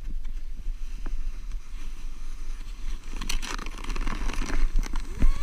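A sled sliding down over snow: a steady scraping hiss with a low rumble from wind and handling on the camera's microphone, growing louder from about halfway through as the sled picks up speed.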